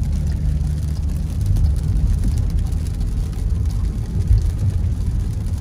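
A car driving on a wet road, heard from inside the cabin: a steady low rumble of road and engine noise.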